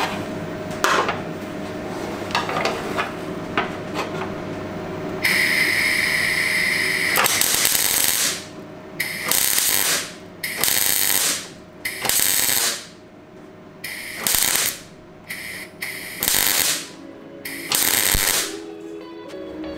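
Clarke 150 TE Turbo MIG welder's arc laying short welds into rust holes in the thin steel of a wheel well, with a copper block backing the holes to draw off heat. A few handling clicks come first. About five seconds in there is a two-second weld, then a string of shorter bursts of under a second each, with pauses between them.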